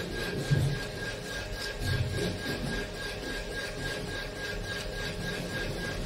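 Gloved hands handling metal parts of a cutter-blade assembly: a few soft knocks and rubbing, over a steady background hum with a constant high whine.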